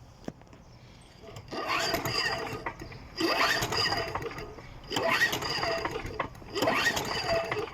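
John Deere 14SZ walk-behind mower's recoil starter pulled four times in a row, the engine cranking and whirring up in pitch with each pull but never catching. It is a no-start, even with carb cleaner sprayed into the carburettor, which the owner puts down to a choke lever that doesn't move.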